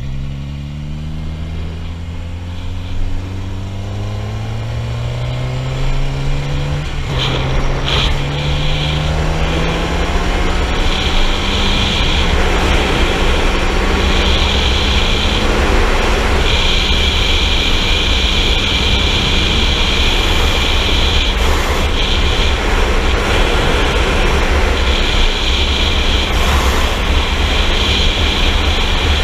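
Sport motorcycle engine pulling up through the revs while riding, dipping briefly about seven seconds in and then holding a steady speed. Wind rushes over the helmet microphone and grows louder as speed builds, with a high whistle that comes and goes in the second half.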